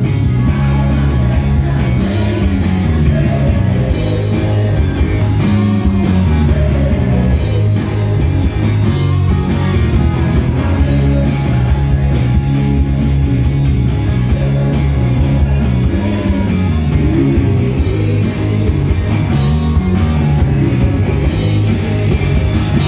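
A rock band playing live at full volume: electric guitars, bass guitar and a driving drum kit, with a male lead vocal over the top.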